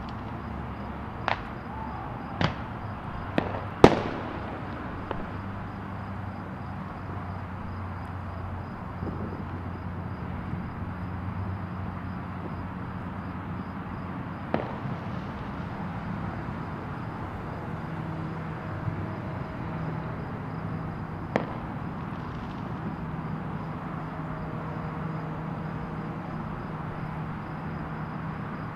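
Scattered fireworks bangs: four sharp reports in the first four seconds, the fourth the loudest, then single bangs about 15, 19 and 21 seconds in, over a steady low rumble.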